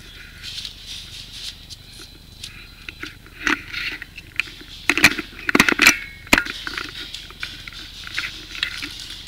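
Paintball marker and gear rattling as the player moves with it, with a cluster of sharp cracks about halfway through.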